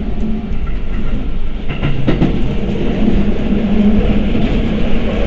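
Keikyu 1000 series electric train running, heard from inside the car: a steady hum from the Toyo IGBT-VVVF inverter and traction motors, with wheels clattering over rail joints about two seconds in. The sound grows louder after the clatter.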